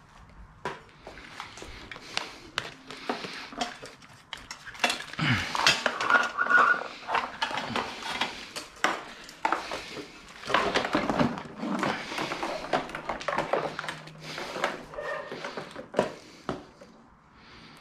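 Clattering and rattling of stripped car dash parts (the plastic heater box, wiring loom and metal brackets) as they are picked up and handled in armfuls, with many small knocks and clicks. Busiest and loudest in the middle, thinning out near the end.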